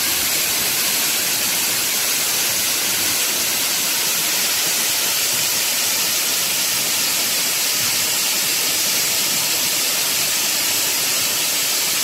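Waterfall in strong flow: a steady, unbroken rush of falling water, with no change in level.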